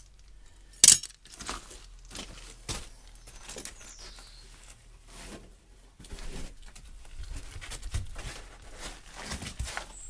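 Scattered knocks, clinks and scrapes of tools and timber as a wooden arch former is taken apart from under a stone arch, with one sharp, loud knock about a second in.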